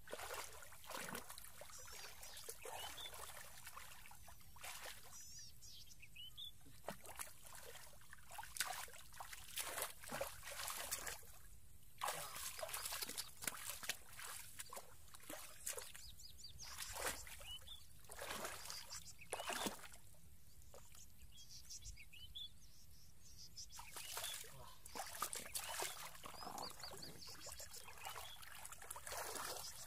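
Hands splashing and sloshing through shallow muddy water, in irregular bursts of splashing and dripping as they grope in the mud.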